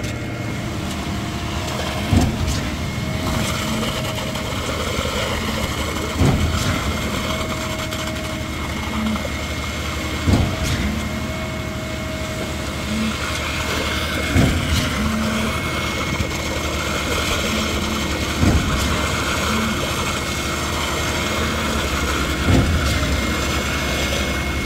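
Concrete pump running steadily while concrete flows from its end hose into the footer trench. There is a loud thump about every four seconds as the pump switches stroke.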